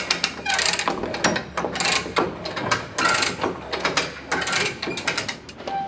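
Ratchet mechanism clicking in a rapid, uneven series as it is cranked round, hoisting a fibreglass hull panel.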